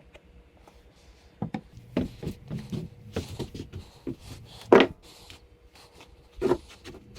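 Handling noises: a string of knocks, taps and rubs starting about a second and a half in, with the loudest knock a little before five seconds and another knock near the end.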